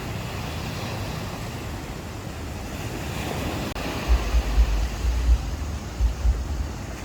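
Sea waves washing onto the shore, with a swell of surf a few seconds in. From about four seconds in, wind gusts buffet the microphone in low, uneven rumbles.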